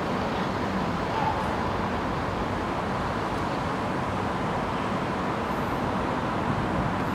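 Steady outdoor background rumble of distant road traffic, with no distinct sounds standing out.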